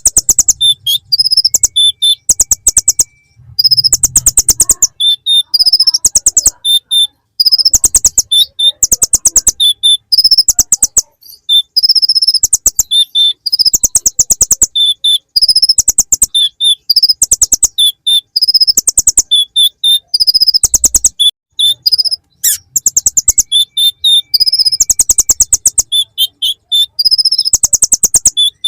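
Kolibri ninja sunbird singing a song full of ciblek (bar-winged prinia) phrases: loud, rapid high trills and chirps in phrases a second or two long, broken by short pauses.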